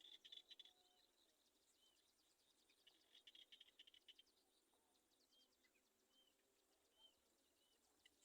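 Faint high-pitched small-animal calls: two bursts of rapid clicking trill, one at the start and one about three seconds in, and half a dozen short chirps in between.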